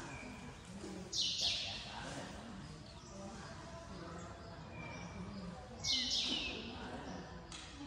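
Buddhist monks chanting low in unison through the hall. Brief high bird chirps break in about a second in and again about six seconds in.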